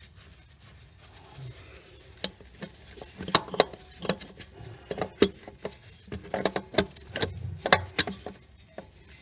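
Unbolted starter motor of a 2008 Honda Civic being twisted and wiggled around in its mounting space, knocking and clattering irregularly against the surrounding metal. The sharpest knocks come in the middle and again near the end.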